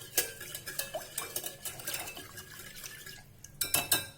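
A whisk clicking and scraping against the pot as milk is whisked into a thick flour-and-butter sauce to keep it free of lumps, with a louder run of strokes near the end.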